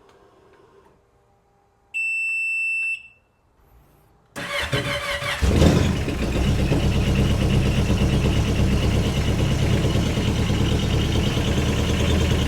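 Yamaha WaveRunner gives a single steady electronic beep of about a second. About four seconds in the starter cranks briefly, and the engine catches at once and settles into a steady idle: a strong crank and immediate start on a freshly installed, higher-cranking-amp battery.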